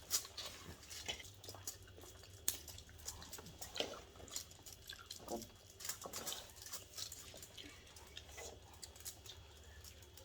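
People eating by hand: chewing, with many small irregular clicks and crackles as food is handled and bitten.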